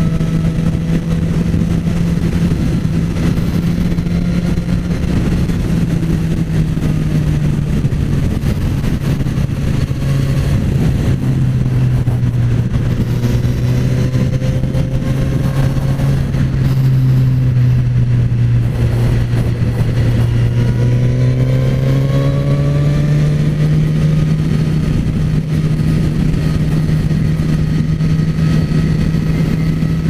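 Suzuki GSX-S1000's inline-four engine running at cruising speed with a deep note, under steady wind rush. The engine note drops as the bike eases off about a third of the way in, then rises again as it picks speed back up about two-thirds of the way through.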